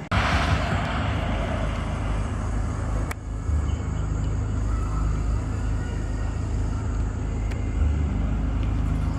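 A car engine idling, a steady low rumble. A short burst of hiss right at the start fades within about a second.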